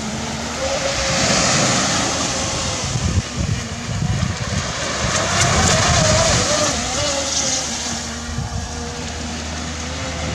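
Pro Boat Voracity RC speedboat running fast across the water, the whine of its brushless electric motor wavering in pitch as it turns and passes close, over wind noise on the microphone and breaking surf.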